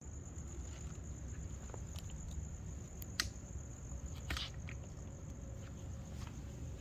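A cricket trills steadily on one high pitch over a low rumble, with a few scattered clicks; the sharpest is about three seconds in.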